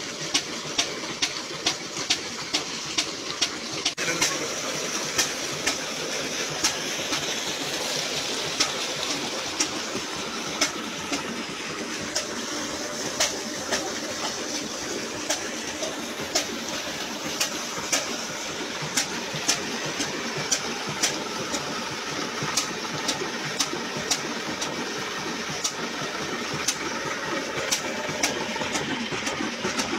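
Stationary engine with large flywheels, belt-driving a water pump, running with sharp regular beats about twice a second, over the steady rush of water gushing from the pump's outlet pipe into a tank.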